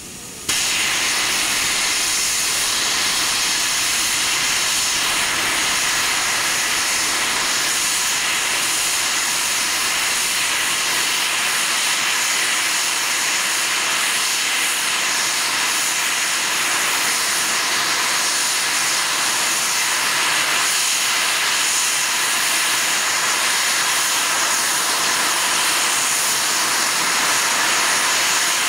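Steam locomotive's safety valves lifting suddenly about half a second in, then blowing off in a steady loud hiss: the boiler is at full working pressure.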